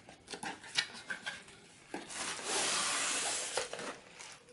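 A cardboard box being handled and opened: a few light taps and knocks, then a long scraping rub of cardboard and packing that lasts about a second and a half.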